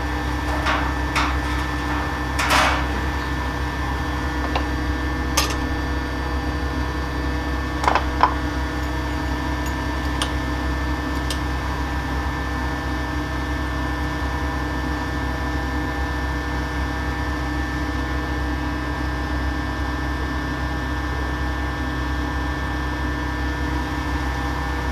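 Steady mechanical hum of workshop machinery, with a few sharp metal clinks and knocks in the first ten seconds or so as the steel gravity die is closed and its core set in place.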